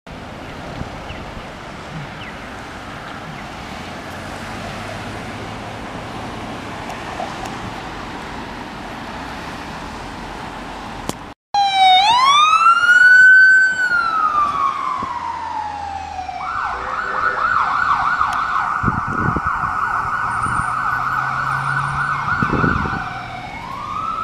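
Steady street traffic noise, then after a cut an ambulance siren: one long rising-and-falling wail, followed by a rapid yelp for about six seconds, with another wail rising near the end.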